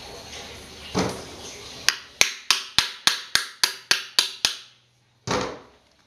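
A run of about ten sharp taps, evenly spaced at three or four a second, each ringing briefly. A softer knock comes before them and a short rustle near the end.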